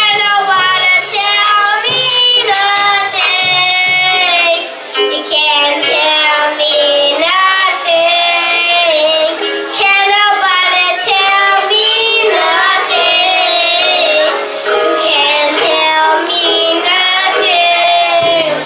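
A group of young boys singing a song together into microphones over backing music. The backing's bass and beat drop out about four seconds in, leaving mostly the voices, and come back near the end.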